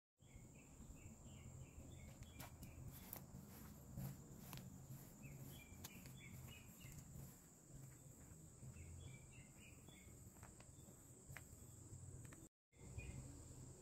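Faint outdoor ambience: a steady high-pitched insect drone, with short clusters of bird chirps every few seconds over a low rumble. The sound cuts out briefly near the end.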